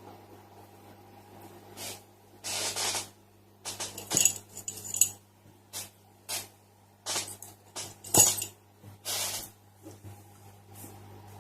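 A series of rustles and sharp metallic clinks from small objects being handled, the loudest clink about 8 seconds in, over a steady low electrical hum.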